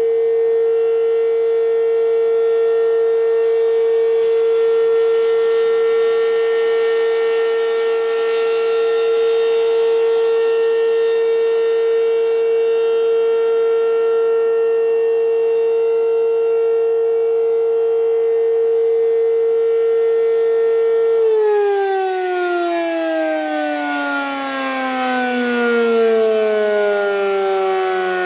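American Signal RM-127 warning siren sounding the steady Alert signal, a loud held tone with many overtones. About three quarters of the way through, its pitch begins to fall steadily as the siren winds down.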